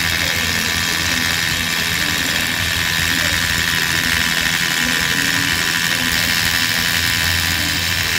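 DeWalt cordless SDS rotary hammer drilling into a concrete block, a steady, loud whirring hammer-drill noise.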